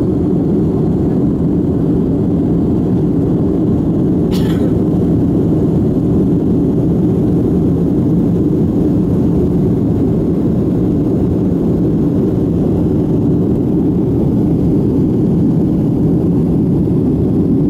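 Cabin noise of a jet airliner in its climb after takeoff: the engines and rushing airflow heard from a window seat as a loud, even, low rumble. A brief faint click comes about four seconds in.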